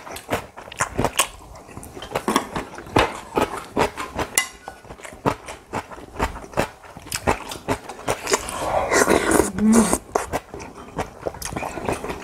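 Close-up eating sounds of two people at a meal: chewing and lip smacking, with frequent clicks of chopsticks and spoon against ceramic bowls and a cast pot. A longer run of mouth noise, with slurping, comes about eight to ten seconds in.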